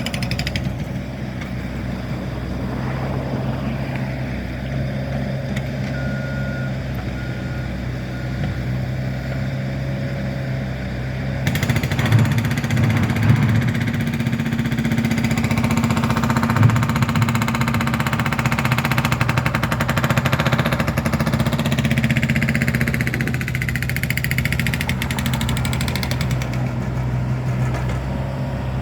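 Heavy diesel road-construction machinery running, a steady engine drone that grows louder and busier about eleven seconds in. Three faint beeps about a second apart come around six seconds in.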